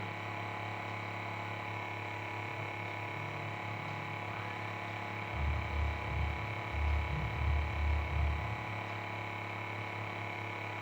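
Steady electrical mains hum, with a run of about six low, muffled bumps a little past the middle.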